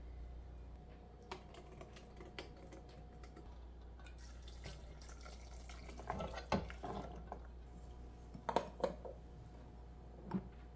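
Quiet kitchen handling over a low steady hum: thick blended black soybean mixture plopping into a glass bowl, then cooked black beans tipped from a pot into a stainless steel container with a few knocks and clinks, and a storage jar set down on the counter near the end.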